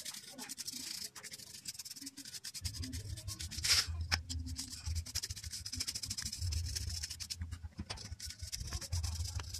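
Paintbrush bristles scrubbing caked dust off the plastic blades of a PC power-supply fan: a rapid, continuous scratchy brushing.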